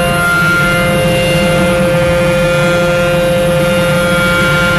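Steady mechanical whine with a low rumble, from a running motor, holding one pitch throughout.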